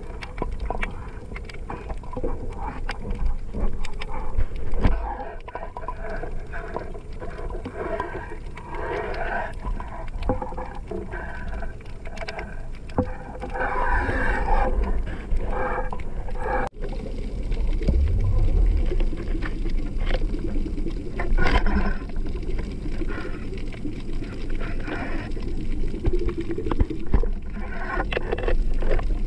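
Muffled underwater sound picked up through a waterproof camera housing during a night freedive: low rushing of water over the housing, with many scattered small clicks and knocks.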